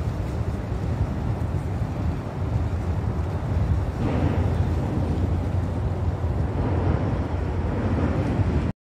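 Wind buffeting the microphone over choppy open water, a steady low rumble with a hiss on top, no engine note standing out. It cuts off suddenly near the end.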